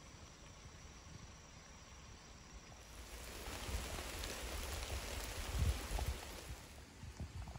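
Rain falling on forest foliage: a steady hiss that comes in about three seconds in, with low rumbling and a few dull thumps under it, fading somewhat near the end.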